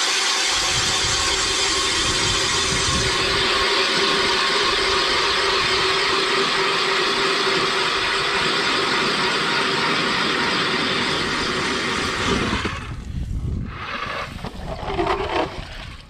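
Power ice auger drilling a hole through lake ice, running steadily, then shutting off about thirteen seconds in.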